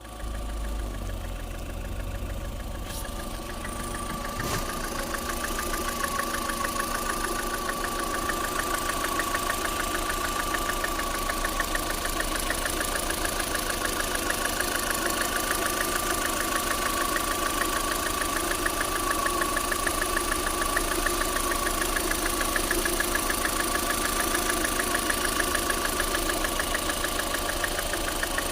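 Lada Vesta NG's eight-valve 1.6-litre 11182 four-cylinder engine idling with a fast, even knock on every turn, at about 4,300 km on a new car. The owner suspects piston slap; the dealer calls such knocking normal for this eight-valve engine.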